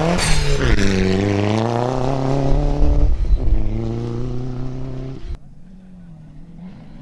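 Rally car passing at speed, its engine note dropping sharply as it goes by, then holding at high revs with a brief dip about three seconds in, like a gear change. About five seconds in the loud engine cuts off abruptly, leaving a fainter, lower engine sound.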